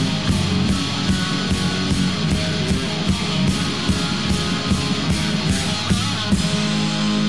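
Rock band playing an instrumental passage: guitar over a steady, fast drum beat. About six seconds in, the drums drop out and held guitar chords ring on.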